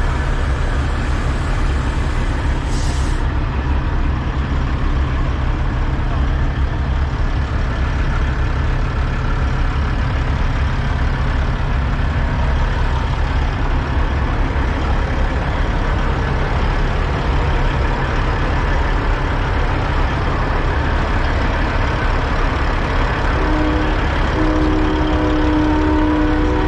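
Semi truck diesel engines idling, a steady low rumble. There is a short hiss about three seconds in, and a steady pitched tone joins near the end.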